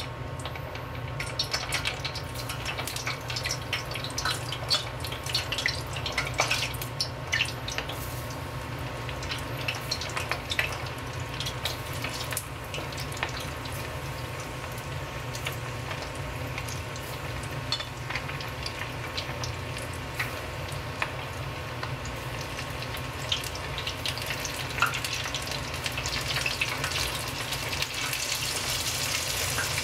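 Karaage chicken deep-frying in oil in an iron wok: a steady sizzle full of sharp crackles and pops as the oil bubbles around the pieces. The hiss grows brighter and louder near the end as the oil foams up.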